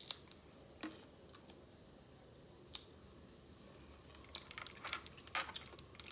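Close-up chewing of snow crab meat: scattered wet mouth clicks and smacks, sparse at first and busier from about four seconds in.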